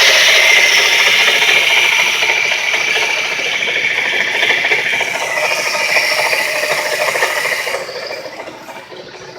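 Running engine with a loud, steady rattling grind from failed bearings in a 130-amp alternator; the noise drops away near the end.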